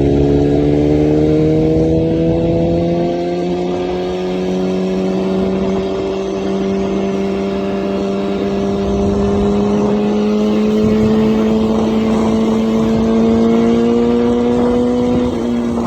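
BMW S1000RR inline-four engine running through an Akrapovic full exhaust system, its revs climbing slowly and steadily, with a slight drop near the end.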